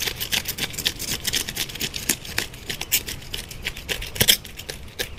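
Knife scraping and cutting a snakehead fish on a wooden cutting board: a fast, uneven run of short raspy scrapes, with a few sharper strokes about four seconds in.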